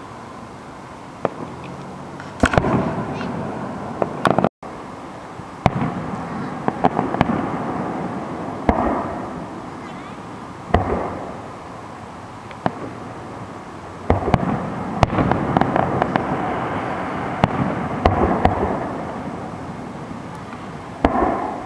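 Aerial firework shells bursting: sharp bangs at irregular intervals, with a dense run of quicker pops and crackles in the middle.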